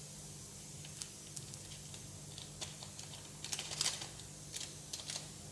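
Light, irregular clicks and crinkles of a Maggi tastemaker seasoning sachet being opened and emptied over the pan, busiest a little past halfway.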